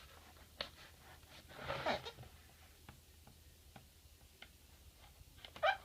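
Pocket knife cutting into the tape and cardboard of a box: scattered light clicks and ticks, with a short scraping rustle about two seconds in.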